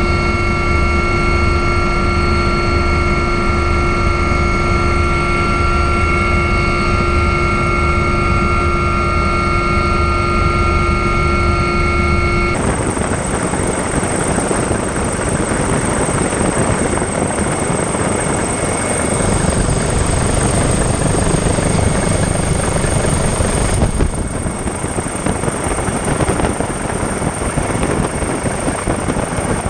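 Helicopter engine and rotor noise, heard from on board. For the first twelve seconds or so it is a steady whine of several held tones over a low throb. It then switches suddenly to a rough, even rushing of rotor wash and wind in which the tones are mostly gone.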